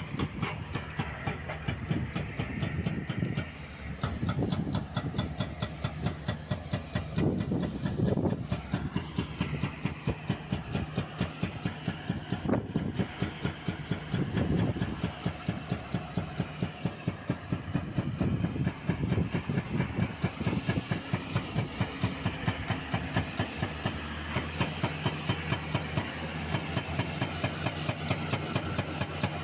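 Hydraulic breaker on a CAT 320C excavator hammering K500 concrete with a rapid, steady run of blows, several a second, over the excavator's diesel engine running.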